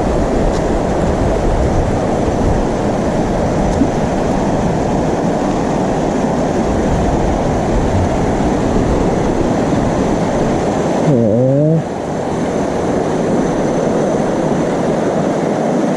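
Steady wind rush on the microphone over a running small motorcycle engine. About eleven seconds in a rising engine note sweeps up, then the overall noise drops a little.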